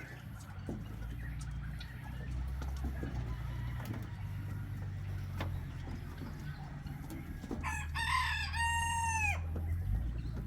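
A rooster crows once, one long call starting about three-quarters of the way in and dropping away at its end, over a steady low rumble and a few faint clicks.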